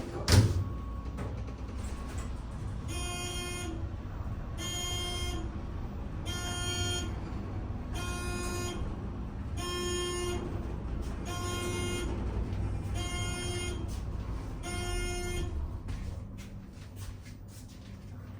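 Elevator car descending with a steady low rumble, and an electronic beep repeating eight times about every second and a half. There is a sharp knock right at the start.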